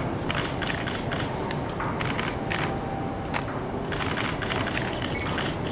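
Busy station platform ambience: a steady low rumble with scattered sharp clicks and taps at irregular intervals, while a train approaches in the distance.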